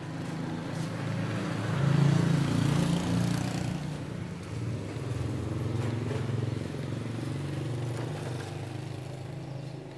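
A motor vehicle's engine running steadily, louder around two to three seconds in and then holding at a lower level.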